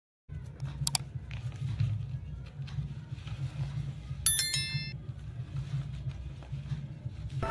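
Hands handling a folded paper craft, with paper rustling over a steady low hum. A sharp click comes about a second in, and a short high bell ding a little past the middle.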